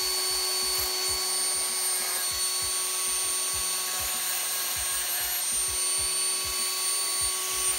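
Dremel rotary tool running at a steady high speed with a small sanding drum, grinding the burrs off the cut edges of a chrome steel D-ring held against it by hand. A constant whine of several fixed pitches over a grinding hiss.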